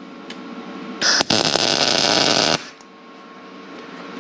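Lincoln Power MIG 210 MP welder's arc crackling for about a second and a half, with a brief break near the start, as weld is built up on a broken steel exhaust stud in an aluminum cylinder head. A steady machine hum runs underneath.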